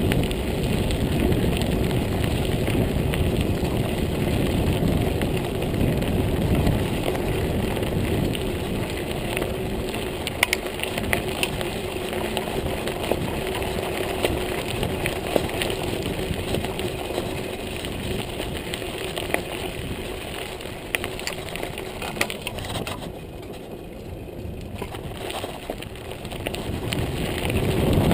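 Montague Paratrooper Pro mountain bike rolling along a gravel trail: steady tyre noise over the stones with a low rumble and scattered clicks and rattles from the bike. The noise drops for a couple of seconds a little before the end, then rises again.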